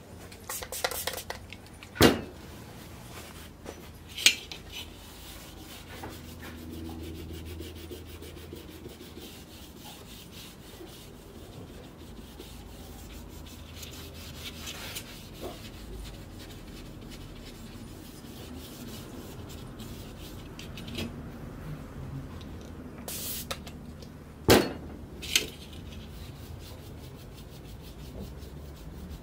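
Cloth rubbing along a thin metal fuser part as it is wiped clean, a steady scratchy scrubbing. A few sharp knocks of metal parts being handled stand out, two near the start and two near the end.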